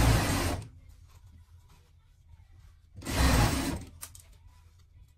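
Industrial straight-stitch sewing machine running in two short bursts while topstitching fabric: the first stops within the first second, the second starts about three seconds in and lasts under a second.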